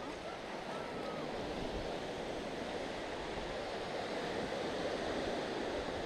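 Sea waves washing onto the beach: a steady, unbroken hiss of surf that grows slightly louder.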